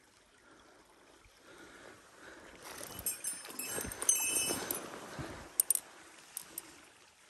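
Close handling noise, rustling and light knocking, while a small caught trout is held and looked over beside a stream, building about a second and a half in and loudest in the middle, with a few sharp clicks near the end; faint stream water underneath.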